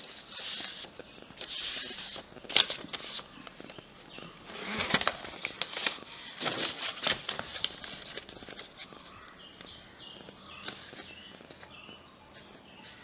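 A sheet of paper being handled, folded and creased by hand: irregular rustles and crackles with a few sharp clicks, the sharpest about two and a half seconds in.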